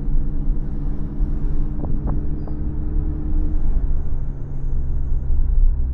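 2018 Audi S3 heard from inside the cabin while driving: a steady engine and drivetrain hum over road rumble. A few light clicks come about two seconds in, and the pitch of the hum shifts slightly past halfway.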